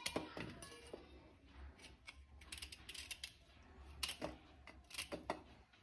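Irregular light clicks and knocks from kitchen utensils being handled, over a faint steady low hum.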